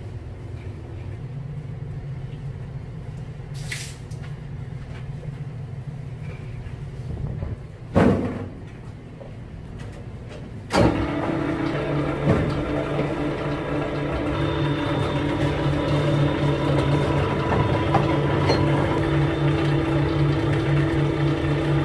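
A machine starts with a sudden clunk about eleven seconds in and then runs with a steady, even hum of several pitches. Before it starts there is a lower background hum and one loud knock about eight seconds in.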